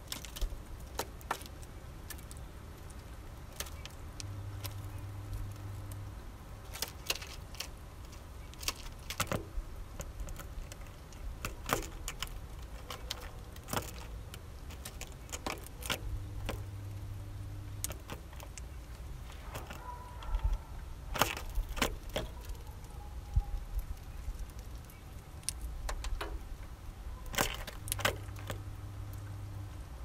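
Male Eurasian bullfinch feeding at a tray of sunflower seeds: irregular sharp clicks and taps of its beak cracking seeds and knocking the husks and feeder. A low hum comes on three times for about two seconds each.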